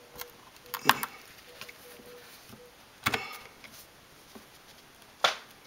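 Hobby knife blade being worked into the seam of an iPod Classic's metal back case: three sharp metallic clicks a second or two apart, the second ringing briefly, with faint ticks and scrapes between them.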